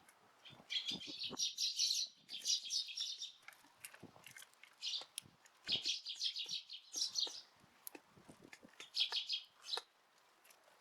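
Eurasian tree sparrows chirping in repeated bouts of quick notes, several birds together, with soft short knocks in between.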